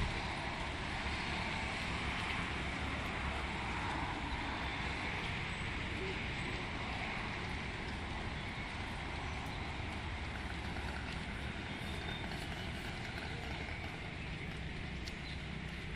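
Steady road traffic noise, a continuous low rumble of passing cars and trucks with no single vehicle standing out.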